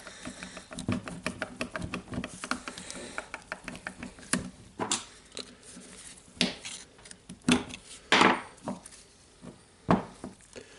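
Clicks and knocks of an angle grinder's gear housing and parts being handled and taken apart: a quick run of small clicks, then scattered sharper knocks.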